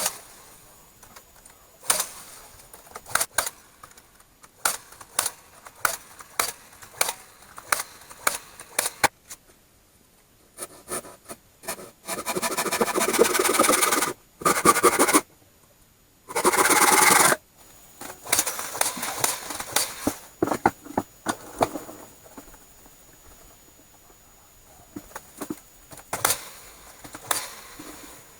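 Workshop clatter: a string of knocks and metallic clinks from tools and parts being handled, with two short runs of a power tool around the middle, the first about two and a half seconds long and the second about one second.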